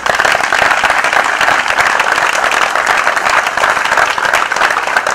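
An audience applauding: dense clapping from many hands, held at a steady level.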